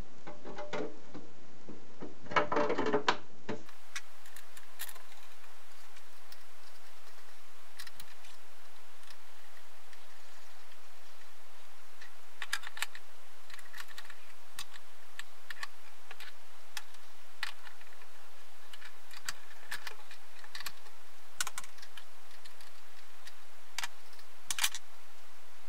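Light clicks and taps of small metal parts being handled at the rear of a mini lathe's spindle as the adjustable spindle stop is fitted. A short louder clatter comes in the first few seconds, then single clicks come every second or so.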